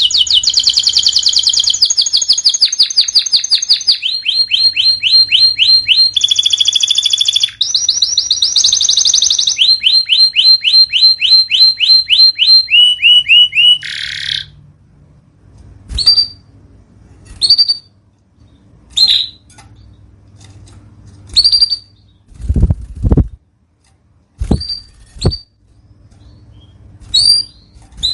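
Canary song: rapid trilled rolls of repeated notes, each roll at a different pitch, for about the first half. Then the rolls stop and short single chirps come every second or so, with two low thuds in between.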